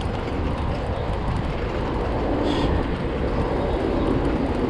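Wind rushing over the camera microphone and city traffic noise while riding a bicycle, steady throughout. A short hiss about two and a half seconds in.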